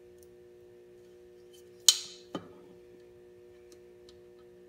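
A sharp metallic clink about two seconds in that rings briefly, then a duller knock half a second later, from metal tools and parts being handled at the bike's aluminium radiator. A steady low hum sits underneath.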